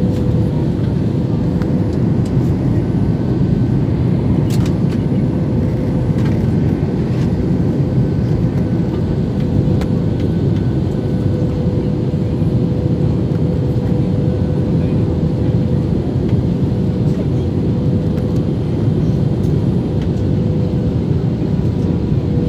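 Steady cabin noise inside a jet airliner on descent: a deep, even rumble of engines and rushing air with a steady hum tone over it.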